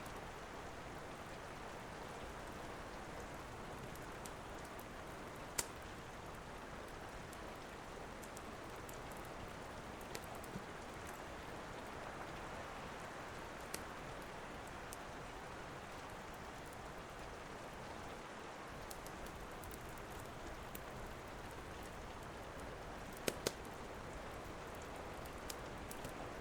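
Steady rain hissing, with an occasional sharp crackle from a wood fire, two of them close together near the end.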